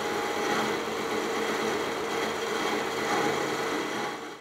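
Metal lathe running steadily while its turning tool finish-cuts the outside of a steel scaffolding-pipe sleeve, a steady machining noise with a low hum under it that fades out near the end.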